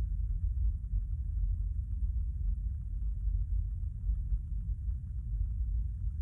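Steady low rumble inside a stationary car's cabin, with no words over it.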